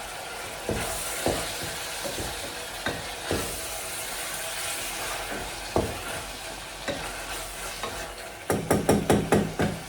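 Onions, tomatoes and green pepper sizzling in a pot with a steady hiss, and a cooking utensil knocking against the pot now and then. Near the end there is a quick run of about eight knocks as the pot is stirred.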